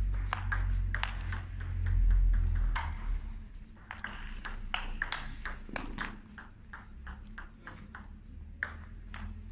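Table tennis ball being struck back and forth in a rally, sharp ticks off the rackets and bounces on the table, one every half second or so. A low rumble sits under the first three seconds.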